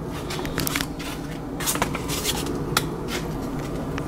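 Scattered light clicks and rustles from hands handling the plastic parts of a water softener control valve, over a steady low hum.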